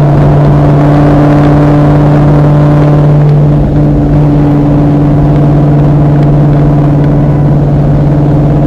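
2001 Mustang GT's 4.6-litre V8 running loud at a steady engine speed, a constant drone, with a brief dip in level about three and a half seconds in.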